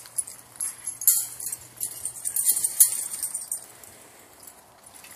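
Metal collar tags and leash clips on leashed Cairn Terriers jingling and rattling as the dogs move about, busiest from about a second in and dying away after three and a half seconds.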